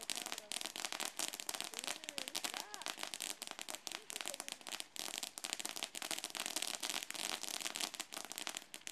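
Firework crackling continuously, a dense rapid stream of small irregular pops.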